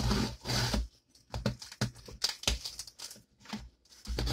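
Scissors slicing through packing tape on a cardboard box: a hissing cut lasting about a second at the start, then a string of short crackles and scrapes as the tape and cardboard flaps are worked open.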